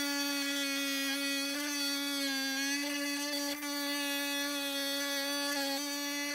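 10-inch Hi Tech Diamond lapidary saw with a thin sintered diamond blade cutting through a septarian nodule (lightning stone): a steady motor whine whose pitch sags slightly a couple of times as the stone is pushed into the blade.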